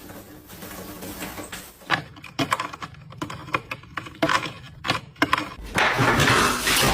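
Irregular sharp clicks and taps, several a second, like keys being struck, followed near the end by a louder, steadier rushing noise.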